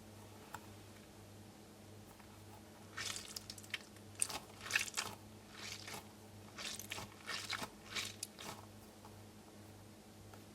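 Orbeez-filled squishy pig fidget toy being squeezed and handled: soft crackly squishing in short bursts from about three to eight seconds in.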